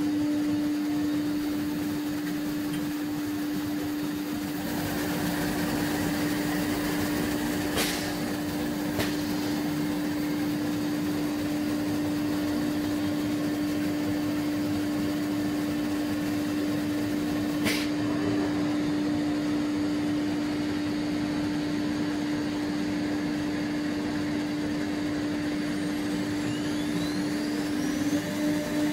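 CNC router spindle running steadily at speed, a constant high hum over a steady rushing noise, with a few sharp clicks about eight, nine and eighteen seconds in.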